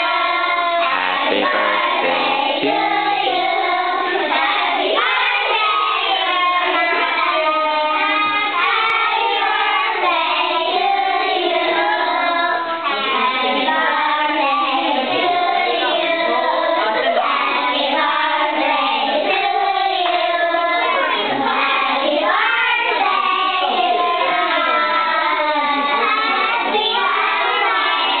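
A group of young children singing together, continuously.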